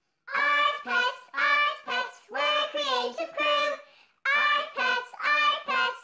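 A high, child-like voice singing the opening lines of a theme song unaccompanied, in short held phrases, with a brief pause about four seconds in.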